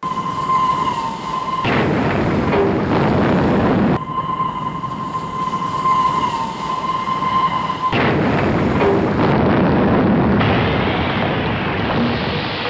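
Train sound effects: a steady train horn blast gives way to a loud, heavy rumbling of rolling stock. The pair comes twice, then settles into a continuous rail rumble.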